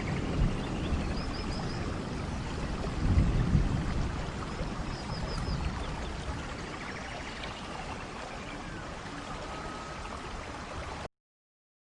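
Heavy rain falling steadily on garden foliage, with low rumbling swells that are loudest about three seconds in, and a few faint high chirps twice. The rain fades gradually, then cuts off abruptly near the end.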